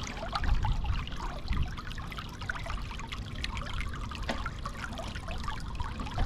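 Water pouring and splashing steadily out of the end of a driveway drain pipe that has just been unclogged, now flowing freely.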